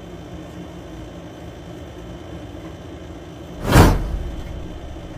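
Steady low rumble of room noise, with one loud whoosh that swells and fades about three and a half seconds in.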